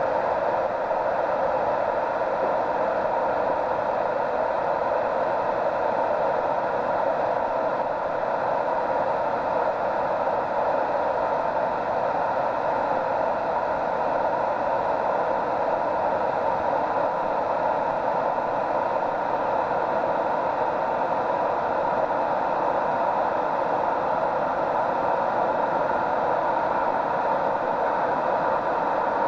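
Steady, muffled rushing noise, even throughout, with no knocks or changes.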